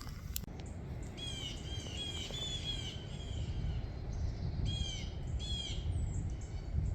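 A bird calling in two quick runs of short repeated notes, over a steady low rumble.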